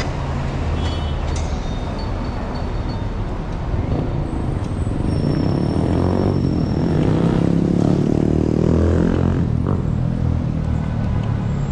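Street traffic: a steady low rumble of vehicle engines and tyres, swelling as a vehicle passes close in the second half.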